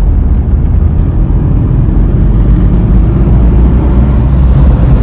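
A car driving, heard from inside the cabin: a loud, steady low rumble of engine and road noise.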